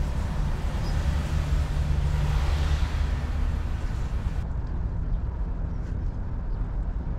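Steady low outdoor rumble with a hiss over it that swells about two to three seconds in; the high hiss cuts off abruptly about four and a half seconds in.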